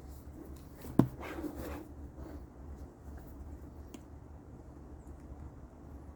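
Hands handling the vacuum's plastic parts during reassembly: one sharp click about a second in, then faint rustling and a few small ticks over a low steady hum.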